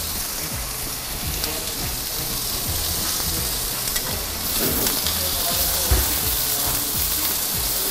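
Seasoned beef fillet cubes searing on a preheated flat-top grill: a steady sizzling hiss, with a few faint ticks and one sharp knock about six seconds in.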